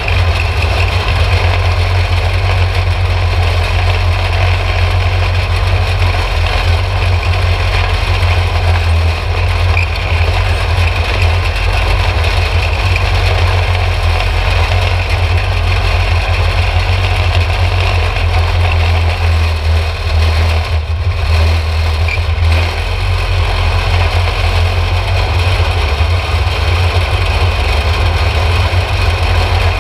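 Yerf Dog go-kart's small engine running as the kart drives over grass, heard from on board the kart, with a deep steady drone and rattle. It dips briefly twice about two-thirds of the way through.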